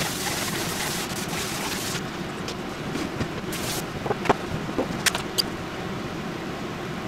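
Steady background hum with a hiss over the first couple of seconds, then several sharp knocks and clicks about four to five and a half seconds in as a bowl and food packages are set down and moved on a wooden table.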